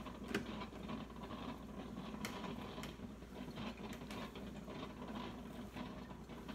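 A coffee maker brewing, a low steady hum, under scattered light clicks and rustles of a phone being handled close to hair.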